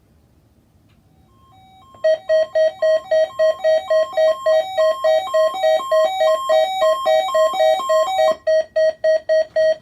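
Weather radio receiver, a Midland WR-100, sounding its electronic alert alarm: fast, loud beeping at about three to four beeps a second, which starts after a couple of seconds of faint hiss. The beeps step between several pitches at first, then settle into a single repeated tone about eight seconds in.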